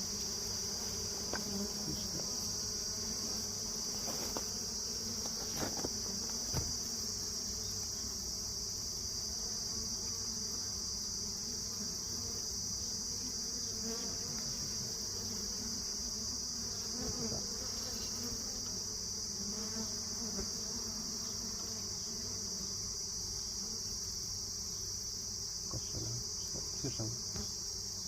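Dwarf honeybees (Abu Tuwaiq bees) buzzing around a cut-open wild colony, a low wavering hum, over a steady high-pitched insect trill. A few faint knocks come from handling the comb about five seconds in and near the end.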